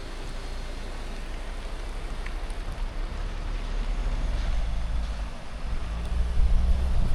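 Kia Sportage driving along a road: a low rumble of engine, tyres and wind that grows louder toward the end, with the engine's hum coming up and rising slightly in pitch over the last few seconds.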